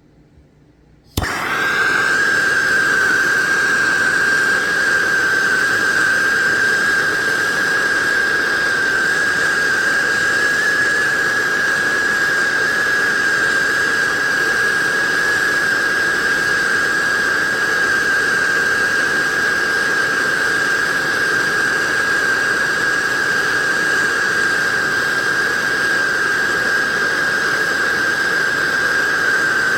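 Propane torch lit about a second in with a sudden start, then burning steadily: a loud, even hiss with a steady high whistle, heating the joint to braze in a refrigerant access valve.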